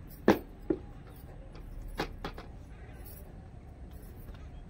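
Four sharp knocks or clacks in two pairs: a loud one and a smaller one near the start, then two more about two seconds in.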